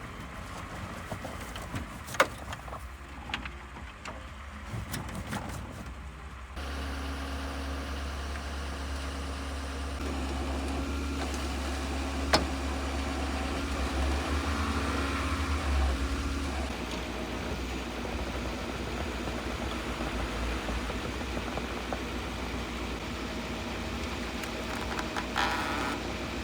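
A car engine running steadily with a low hum that sets in about six seconds in, with a few sharp clicks and rustles.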